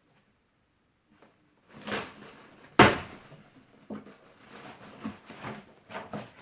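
A cardboard shipping box being handled and pried open after a short silent gap: irregular scraping and rustling, with one sharp knock about three seconds in.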